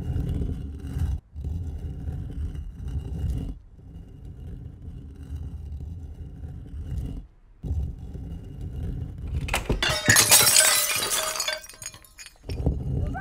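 Low rumbling sounds come in stretches with short breaks. About nine and a half seconds in there is a loud crash of shattering glass, lasting about two seconds.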